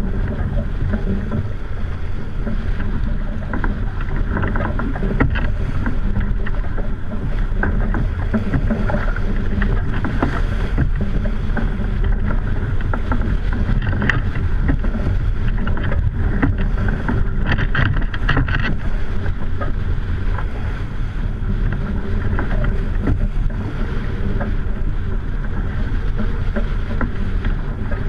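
Wind buffeting a deck-mounted microphone and water rushing along the hull of a heeled racing sailboat, a steady rushing noise that turns briefly brighter about two-thirds of the way through.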